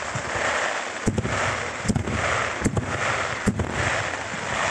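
Fireworks fired in volleys of rising comets: four sharp launch thumps, evenly spaced, over a continuous hiss that swells with each volley.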